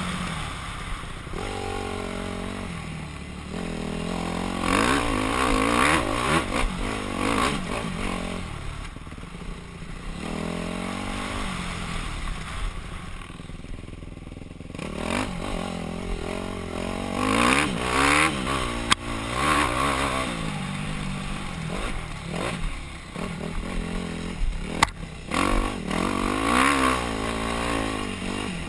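Yamaha YZ250F four-stroke single-cylinder dirt bike engine being ridden hard, revving up and dropping back again and again as the rider accelerates and shuts off. A couple of sharp knocks come from the bike over the rough track.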